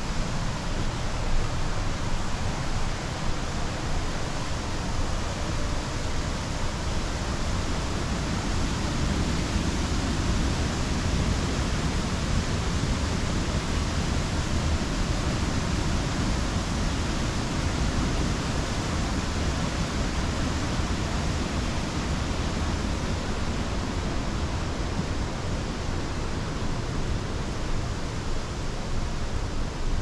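Steady rush of water from the Kannon Falls' river and waterfall, an even, unbroken noise.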